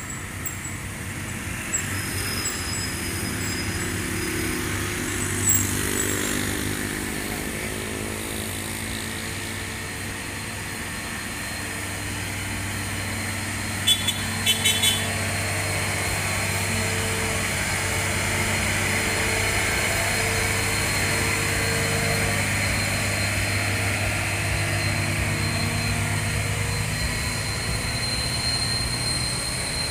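Diesel engine of a fully loaded Hino 500 wing-box truck running under heavy load as it climbs a steep hill, a steady drone at an even pitch that grows louder over the first few seconds as the truck comes close. A few sharp clicks about halfway.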